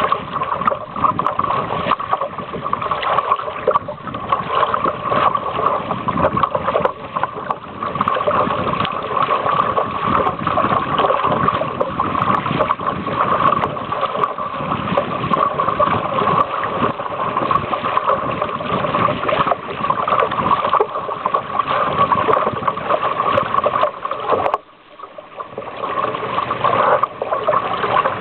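Water rushing and splashing along the hull of a sailing canoe under way, a steady wash that drops away for about a second near the end.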